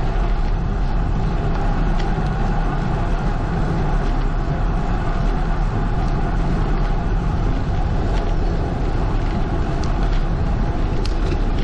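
Steady wind rumble on a GoPro action camera's microphone as the bike rides along, with road and tyre noise under it.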